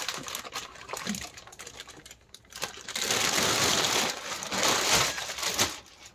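Thin clear plastic bag crinkling and rustling as it is pulled off a 1:10 scale RC car, with light crackles and small taps at first, then a dense, louder crinkle for a couple of seconds from about halfway through as the bag comes away.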